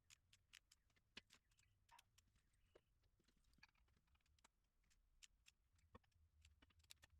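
Near silence, with faint irregular clicks and taps scattered throughout.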